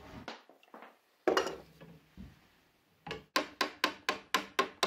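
A single sharp snip about a second in as end cutters cut off a copper boat nail. From about three seconds in, a hammer taps quickly and evenly, about four blows a second, against a dolly held on the other side. This peens the cut end of the nail over a copper rove, clenching a copper rivet.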